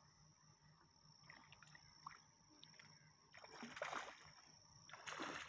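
Water splashing in two short bursts, a little past halfway and near the end, over a faint steady high whine.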